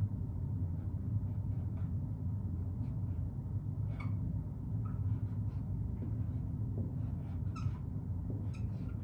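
Dry-erase marker squeaking and scratching on a whiteboard in short strokes, over a steady low room hum.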